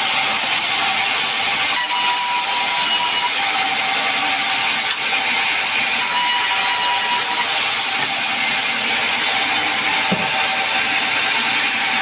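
Sawmill saw cutting through pine timber, a loud steady cutting noise with a thin whine that comes and goes.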